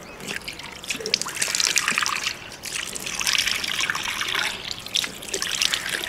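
Water splashing and trickling at a wash-basin tap as a man washes his face with cupped handfuls of water. It comes in two spells of splashing with a short lull about two and a half seconds in.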